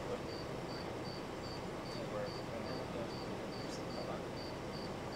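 A cricket chirping steadily, about two and a half high chirps a second, over a faint steady background noise.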